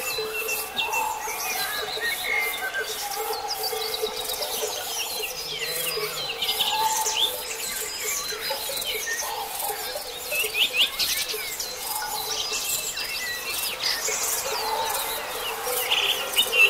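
Morning chorus of many songbirds chirping and trilling over one another, with a low steady hum underneath.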